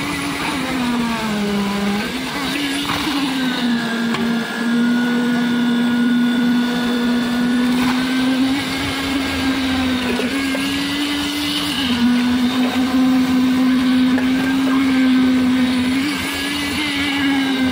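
Concrete poker vibrator running steadily with a high, even hum, its pitch dipping briefly a few times as the needle is worked through the wet concrete.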